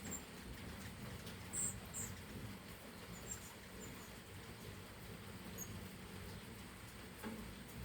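Hummingbirds giving short, very high squeaky chip calls, with two stronger ones about a second and a half and two seconds in and a few fainter ones scattered after, over a faint steady low background noise.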